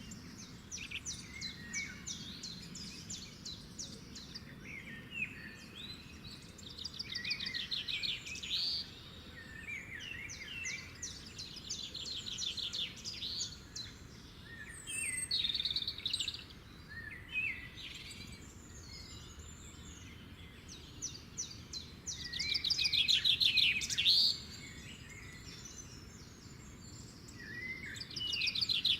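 Songbirds singing, with fast trilled phrases repeating every few seconds and the loudest phrase about three quarters of the way through, over a faint steady outdoor background.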